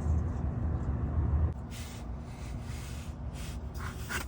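A low, steady rumble that cuts off abruptly about a second and a half in, followed by quieter rustling and a couple of light clicks.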